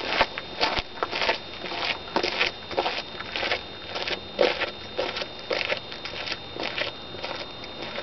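Footsteps and a walking cane crunching on a gravel road, about two steps a second at an even walking pace.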